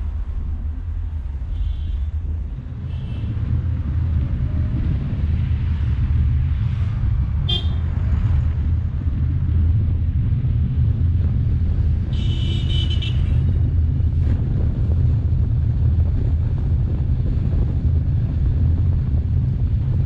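A vehicle driving through city traffic with a steady low road rumble. Vehicle horns sound over it: two short toots in the first few seconds, a sharp honk a little later, and a longer honk of about a second past the middle.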